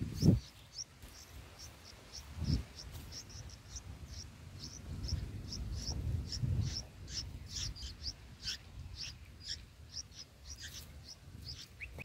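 Bulbul nestlings begging: short, high chirps repeated about three times a second. There is a low thump near the start and another about two and a half seconds in.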